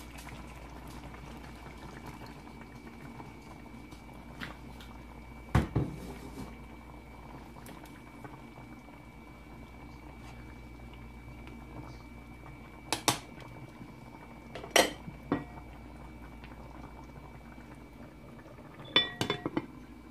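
Pork ribs in green salsa bubbling at a simmer in a frying pan, with several sharp knocks and clinks as metal tongs stir the pan. A cluster of clinks near the end as a glass lid is set on the pan.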